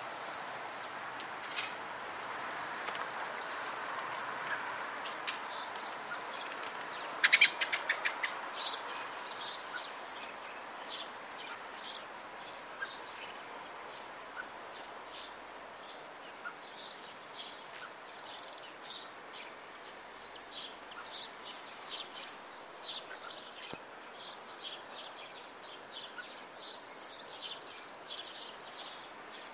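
A flock of Bohemian waxwings calling: many short, high, trilling calls, thickening in the second half. A quick burst of sharp clicks comes about seven seconds in, over a steady background noise that eases after about ten seconds.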